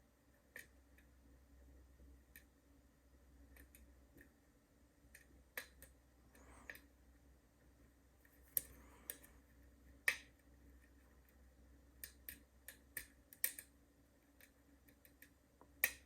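Little tiny clicks, sharp and at irregular intervals, with faint scraping, from a hook pick working the pins of a Schlage deadbolt cylinder held under a top-of-keyway tension wrench. This is the lock's slight feedback as the pins are lifted and set.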